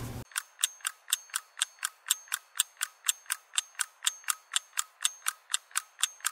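A ratcheting screwdriver clicking evenly, about four clicks a second, as a screw is backed out of a metal printer bracket.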